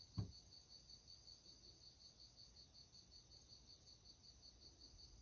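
Faint, steady, evenly pulsed chirping of a cricket, with one short low thump just after the start.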